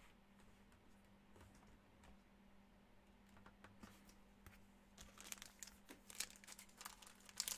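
Near silence, then from about five seconds in a run of faint, crisp crinkling and tearing of plastic trading-card pack wrappers being handled and opened.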